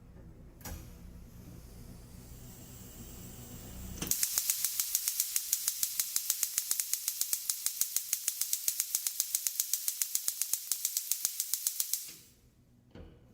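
Gas stove's electric spark igniter clicking rapidly, about five or six clicks a second for around eight seconds, then stopping. Before it, a single click and a faint hiss; one more click near the end.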